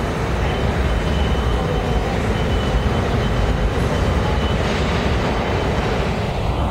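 New York City subway train running through a station: a steady rumble of wheels on rail, with a faint high-pitched whine that comes and goes.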